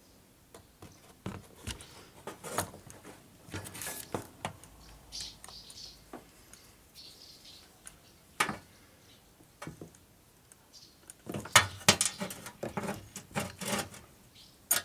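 Metal tools and fittings clicking and clattering as they are picked up and handled on a workbench, with a denser run of knocks and rattles near the end as a tyre inflator with its gauge and hose is handled.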